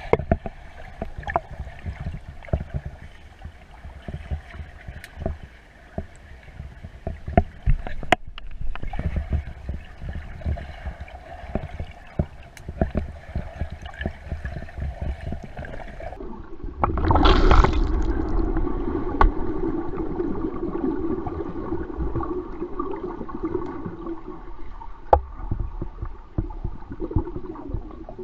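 Swimming-pool water heard underwater through a GoPro in its waterproof housing: gurgling water movement with scattered clicks and knocks. About 17 seconds in comes a loud rush of water, followed by a steadier rushing hum.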